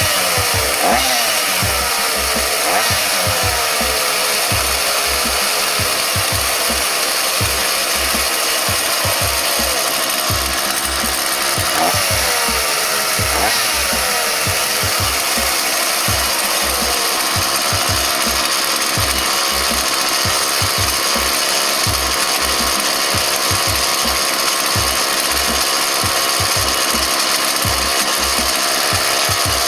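Homelite UT-series 42cc two-stroke chainsaw running steadily and loudly after a carburetor replacement. It is revved a few times, near the start and again about twelve and thirteen seconds in, and runs well.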